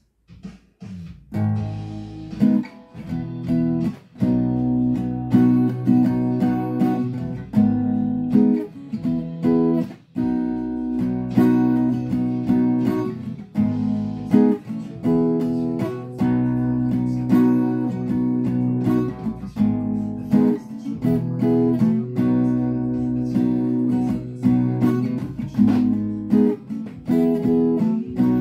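Acoustic guitar strummed with a capo at the second fret, starting about a second in. It plays a steady strumming pattern through the chords D, A, F-sharp minor and E, changing chord every couple of seconds.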